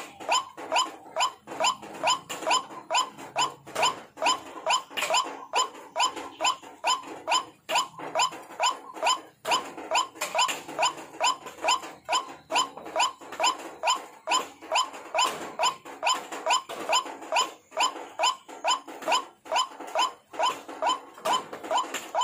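White-breasted waterhen (ruak-ruak) calling: one short, rising note repeated evenly, about two to three times a second, without a break. This is the monotonous call that is played as a lure for the species.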